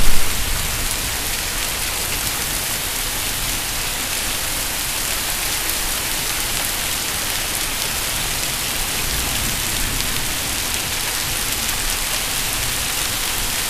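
Heavy downpour: a steady, even hiss of rain pouring onto pavement and foliage. A brief louder burst right at the start.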